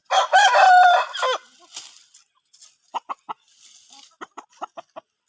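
Rooster crowing once, a single loud crow of about a second and a half. It is followed by two runs of short chicken clucks, about three seconds in and again near the end.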